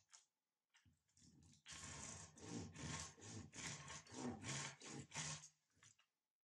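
Hand saw rasping through a dry fatwood branch in quick back-and-forth strokes, about three a second, starting a second and a half in and stopping shortly before the end.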